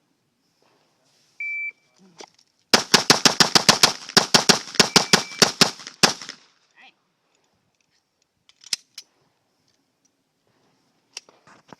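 A shot timer beeps once, and a little over a second later a Glock 19 9mm pistol fires a rapid string of about eighteen shots in some three and a half seconds, the first shot slower, the rest coming several a second.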